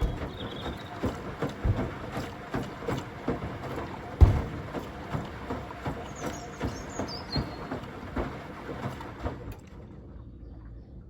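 Washing machine drum tumbling watermelons, a quick irregular run of thuds and knocks with one heavy thump about four seconds in. The tumbling stops near the end.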